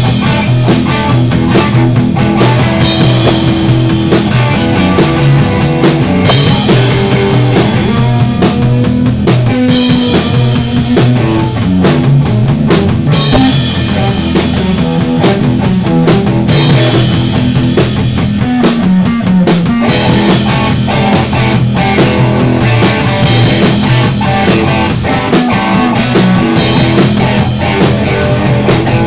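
A rock band playing loudly in rehearsal: drum kit and guitar running through a song.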